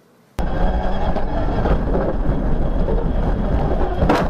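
Loud, steady rumble of a moving vehicle, engine and road noise, starting abruptly about half a second in, with a few sharp knocks near the end.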